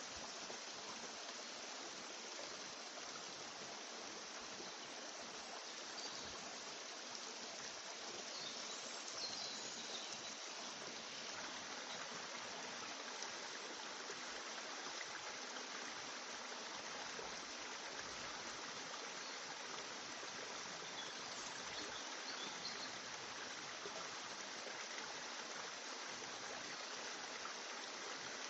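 Steady, even rushing noise like a running stream, unchanged across the whole stretch, with no single sound standing out.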